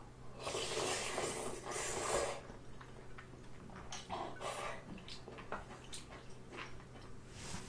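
A person slurping spicy instant ramyeon noodles, one loud hissing slurp lasting about two seconds. About four seconds in comes a shorter slurp of broth from a spoon, followed by soft chewing clicks.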